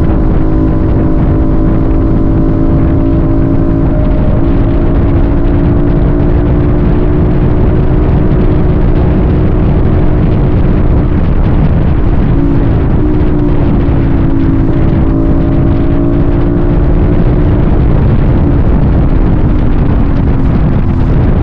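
Vehicle engine running at a steady cruise under road and wind rumble, its pitch shifting slightly about halfway through and easing down near the end.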